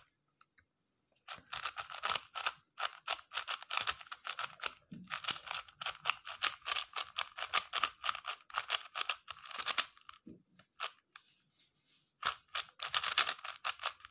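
QiYuan MS Pro 4x4 speed cube being turned fast: a rapid run of plastic clicks and scrapes as its layers turn while a parity algorithm is executed. The turning stops for about two seconds around ten seconds in, then starts again.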